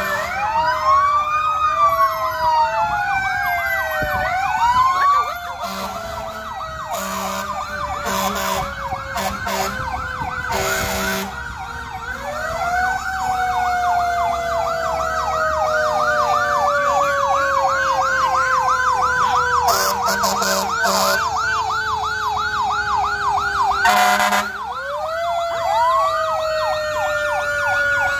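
Several fire-truck sirens sounding at once: wailing tones sweep up and down, a fast yelp runs through the middle, and one long wail falls slowly before winding back up. Short horn blasts break in several times.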